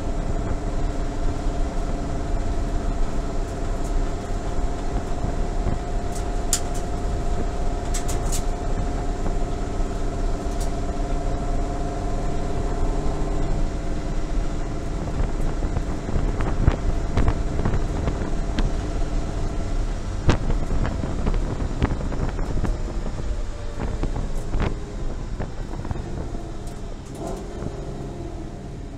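Cabin sound of a 2014 Ford Boss 302S's V8 and driveline at a steady highway cruise, with road rumble and a few sharp rattles or clicks partway through. The sound eases off in the last few seconds as the car slows. No differential howl is noted: the owner says a new ring and pinion cured it.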